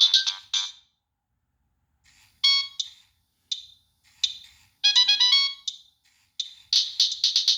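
Nokia 3588i preloaded ringtone playing through the phone's speaker as a synthesized electronic melody. The tune stops less than a second in. After a silence of about a second and a half, short notes start again with gaps between them, then turn into a quick, unbroken run of notes near the end.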